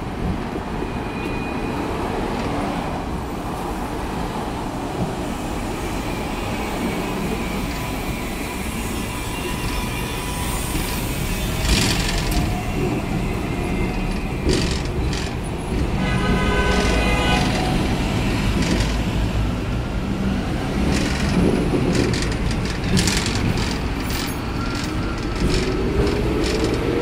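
Hong Kong double-decker electric tram running along its tracks, heard from on board: a steady rumble of the wheels on the rails with scattered clicks and knocks, and a whine that rises near the end.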